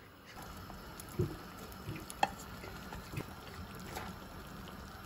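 Water pouring and trickling, with a few sharp clicks along the way and a faint steady hum underneath.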